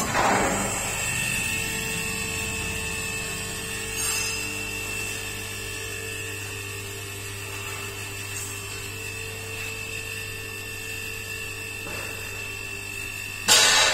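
Hydraulic power unit of a 4-ton underground scissor car lift starting and running steadily, its electric motor and pump giving a constant low hum with a high whine as the lift platforms rise. A loud burst of noise comes near the end.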